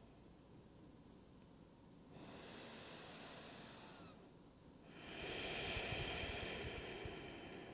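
A person breathing slowly and audibly close to a body-worn microphone: one breath about two seconds in, then a longer, louder breath from about five seconds in.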